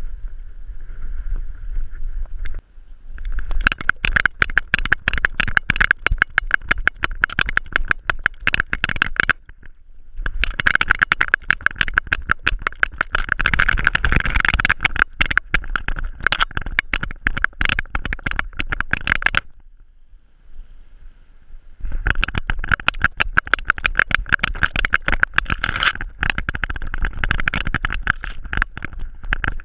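A dog's metal ID tags jingling and clinking rapidly against the GoPro harness mount on its back as it trots, a dense metallic clatter with a ringing jingle. It starts about three seconds in, drops out briefly twice, and is at its most intense around the middle, when the dog shakes itself.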